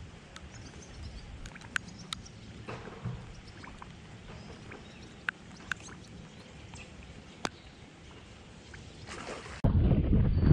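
Faint steady outdoor hiss with scattered sharp light ticks, then near the end a sudden change to loud wind rumbling on the microphone.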